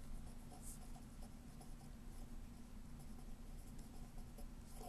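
A pen writing words on paper: faint, short scratching strokes.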